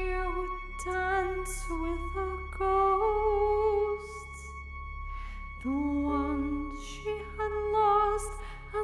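A woman singing a slow melody in long held notes with vibrato, over a steady sustained backing of held tones.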